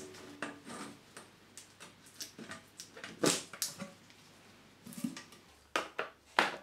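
Scattered clicks and knocks of a metal paint tin lid being prised and handled with a stainless steel paddle, with the loudest knocks a little past the middle and two more near the end.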